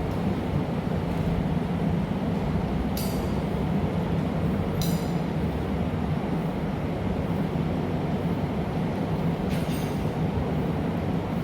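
Steady roar of the glassblowing studio's gas-fired furnace and burners, with three light ringing clinks about three, five and ten seconds in.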